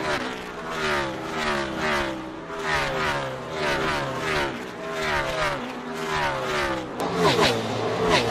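Race car engine sounds laid over the stop-motion: stock cars passing one after another, each pass a falling sweep in pitch about every three-quarters of a second. The passes come thicker and louder about seven seconds in.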